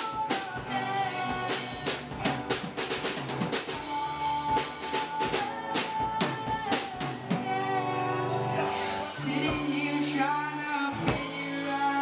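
Live band playing a song: a voice singing over acoustic guitar, keyboard and a drum kit, with regular drum hits.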